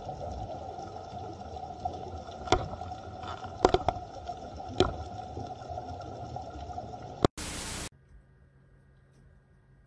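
Underwater ambience picked up by an action camera: a steady hiss with a held hum, broken by a few sharp clicks in the middle, one of them a quick double. A short burst of noise about seven seconds in gives way to quiet room tone.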